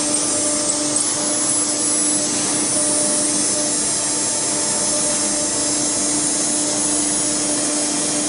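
ATC CNC router's spindle running at speed as the tool is brought down to the workpiece: a steady, even hiss with a constant tone under it.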